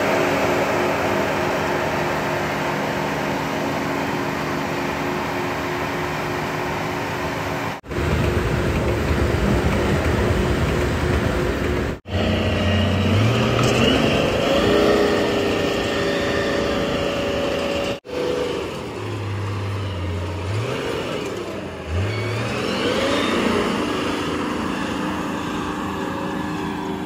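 Komatsu GD405A-2 motor grader's diesel engine running under load while its blade cuts and spreads dirt, the engine note rising briefly several times. The sound drops out for an instant three times.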